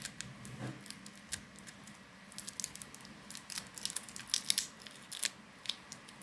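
Watery slime being squeezed and worked by hand, giving many small sticky clicks and pops, more closely packed from about two seconds in.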